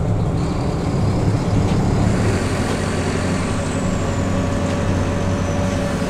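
Bus engine running steadily with road noise, heard from inside the moving bus.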